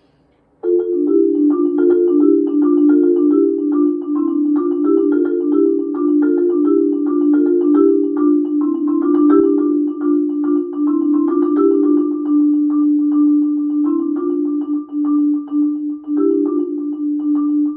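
LV1200FC marimba played with four yarn mallets: a quick, flowing stream of struck notes in the instrument's middle range begins just under a second in, settling into a repeated low note beneath the moving figure.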